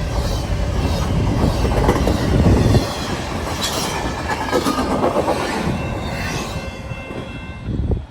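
CPKC freight train 113's cars rolling past a level crossing, wheels clattering over the rails with thin steel-wheel squeals. It is loudest for the first three seconds, then eases off and fades, and cuts off suddenly at the end.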